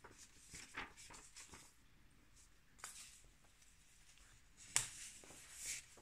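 Faint handling of paper in a handmade art journal: soft rustles and light taps, with a sharper click a little before the end and a short rustle after it.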